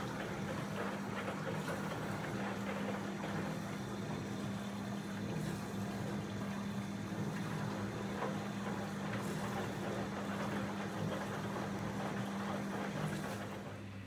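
Fisher & Paykel DD60DCW7 DishDrawer dishwasher running a wash: the pump hums steadily under water spraying and sloshing inside the drawer. Near the end the spraying cuts off, leaving a quieter, lower hum.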